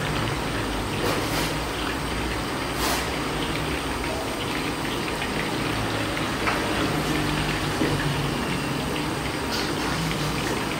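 Battered chicken pieces deep-frying in hot oil in an iron kadai: a steady, dense sizzle and bubbling, with a few brief sharper crackles, the first about a second in, as fresh pieces are dropped into the oil.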